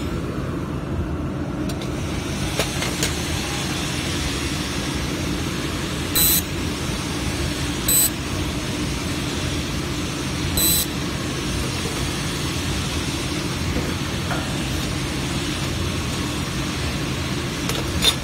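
Handheld 1000 W fiber laser welder firing short tack welds on 2 mm stainless steel plate: brief high-pitched bursts about 6, 8 and 10.5 seconds in, each well under a second, over a steady machine hum.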